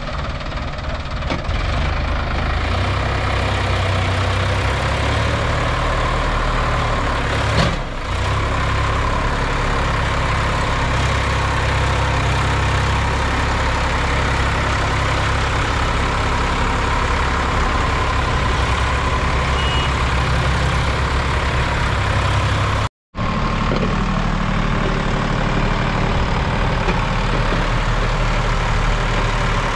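Sonalika DI 745 tractor's diesel engine running steadily under heavy load as it pulls a mud-filled trolley up a rise, the load enough to lift its front wheels. A single knock sounds about eight seconds in, and the sound breaks off for a moment a little after twenty-two seconds.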